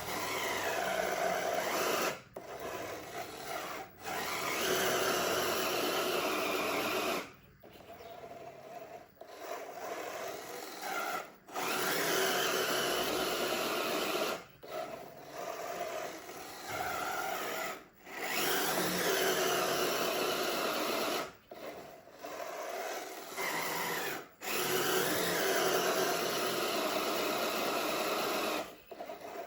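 Small electric motors and gearboxes of radio-controlled construction vehicles whirring, with their pitch rising and falling, mixed with scraping. The sound comes as a string of short clips, each a few seconds long and each cut off suddenly.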